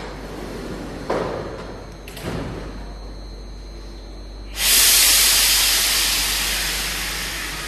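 Paris Métro line 13 MF77 train at the platform: two knocks about one and two seconds in as its sliding doors shut, then a loud sudden hiss of compressed air from the train that slowly fades, just before it pulls away.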